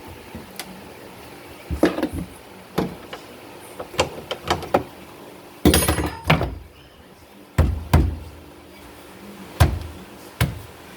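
Irregular knocks and clunks of sheet metal and hand tools being handled and set down, the loudest metallic clank about six seconds in.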